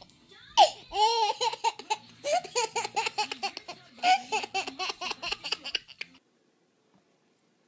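A baby laughing hard in rapid, repeated bursts of giggles that cut off suddenly about six seconds in.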